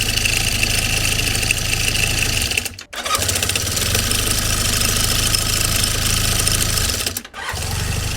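Honda CB400N parallel-twin engine idling with its valve cover removed, with a metallic knocking ring from the top end. The mechanic traces the ring to play in the cam chain. The sound breaks off briefly twice, about 3 s and 7 s in.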